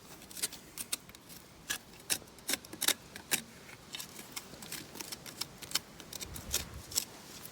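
Irregular sharp clicks and scrapes of a hand tool working against the Lister CS engine's iron casting, clearing out built-up rust and scale.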